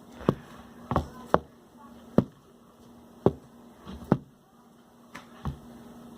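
About eight short, sharp knocks and taps at uneven intervals, hard objects such as a container and utensil striking each other and the counter while glue is worked into borax activator.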